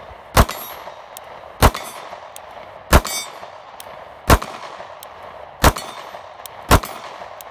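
Sig P365 9mm compact pistol fired six times at a steady pace, about one shot every 1.2 to 1.4 seconds, each sharp report followed by a brief ring.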